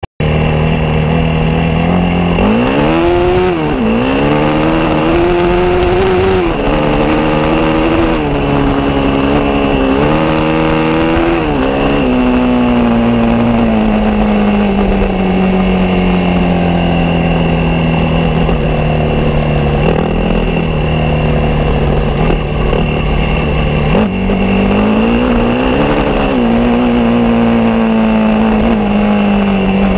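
Honda Tornado motorcycle's single-cylinder four-stroke engine, bored out to 330 cc, under way on a dirt track. In the first twelve seconds the revs climb and drop several times as it shifts up through the gears, then it runs steadily at cruising speed, with a brief rise in revs about twenty-five seconds in.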